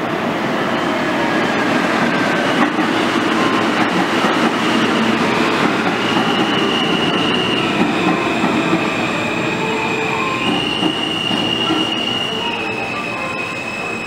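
R160 subway train pulling into an underground station and braking to a stop: a loud rolling rumble with high-pitched squealing tones that start about six seconds in and shift between two pitches, easing off near the end as the train slows.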